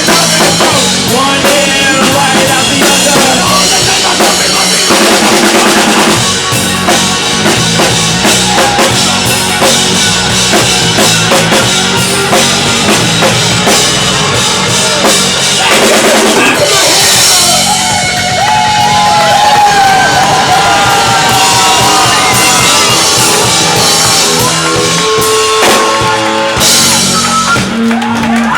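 Live rock band playing loud, driven by a full drum kit with bass drum.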